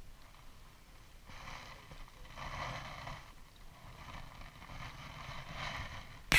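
Small waves lapping against a rocky lakeshore in soft washes about once a second, over light wind on the microphone. A sharp knock right at the end as a hand touches the camera.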